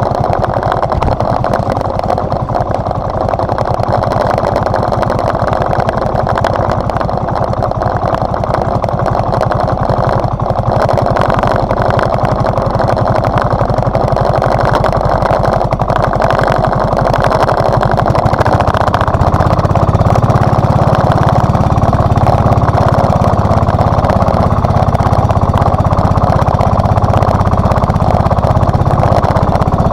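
Small engine of a motorized outrigger banca running steadily under way, a little louder and fuller in the low end from about two-thirds of the way through.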